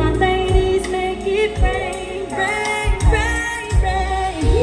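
Live R&B band playing with bass and drums while a woman sings melodic vocal runs over it.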